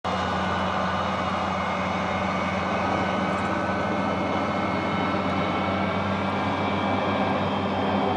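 Steady mechanical hum of a running engine or motor, holding one unchanging pitch.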